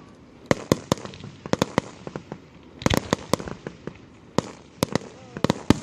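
Fireworks show: aerial shells bursting as a run of sharp bangs at uneven intervals, several coming in quick clusters of two or three.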